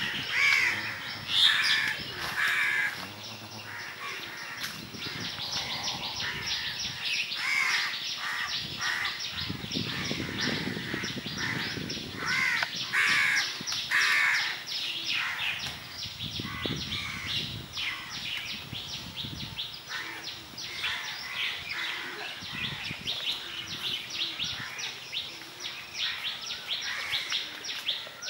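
Crows cawing repeatedly, several harsh calls in clusters, loudest near the start and about halfway through. Under them runs a steady, fast, high pulsing chorus.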